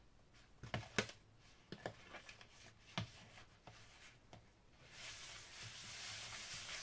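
A spoon and hands knocking lightly against a plastic mixing bowl, a scatter of short clicks and taps while flour is spooned onto pizza dough. Then, about five seconds in, a steady rubbing hiss for about two seconds as hands work the soft, floury dough against the bowl.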